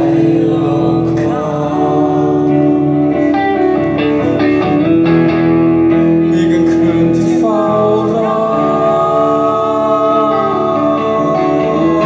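A live band playing a song: vocals over electric guitars and drums, with a long held note in the second half.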